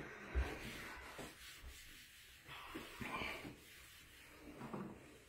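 Faint rubbing of a Norwex EnviroCloth microfiber cloth being wiped across a bathroom countertop, with a light knock about half a second in.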